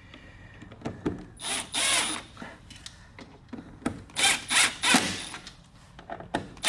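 Cordless drill-driver running bolts into the plastic air filter housing in a few short spurts, with clicks of the bolts and housing in between.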